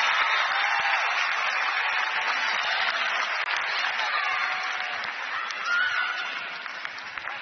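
Arena crowd applauding and cheering, fading away toward the end.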